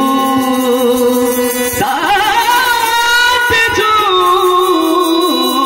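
Male voice singing a Bhojpuri song to harmonium accompaniment, holding long wavering notes; one held note ends about two seconds in and a new phrase begins.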